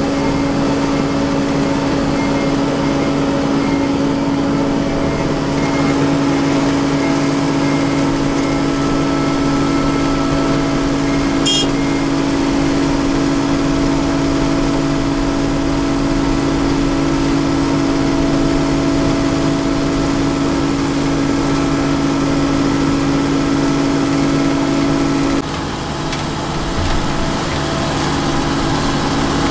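Diesel engine of an asphalt paver running steadily at constant speed, a steady hum with no change in pitch. A brief tick comes about 11 seconds in, and the engine sound drops slightly a few seconds before the end.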